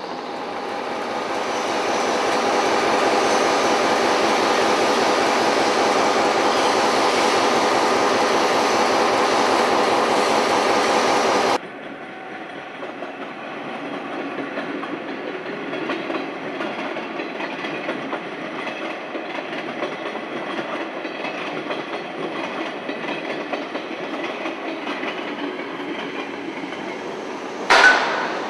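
A diesel multiple unit draws closer, its engines running with a steady multi-tone drone that grows louder and holds, then cuts off abruptly. A freight train then rolls past with a quieter rumble and wheels clicking over rail joints, and a single sharp bang rings out near the end.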